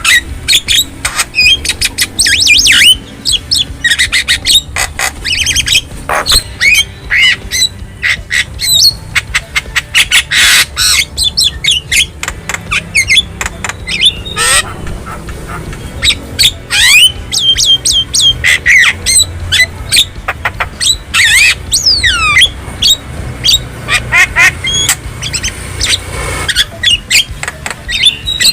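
Javan myna (jalak kebo) song and calls: a fast, unbroken jumble of harsh squawks, clicks and short gliding whistles.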